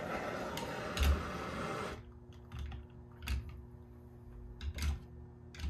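A handheld torch flame hissing steadily over wet acrylic pour paint, cut off abruptly about two seconds in. After it come a few light clicks and knocks as things are handled on the table.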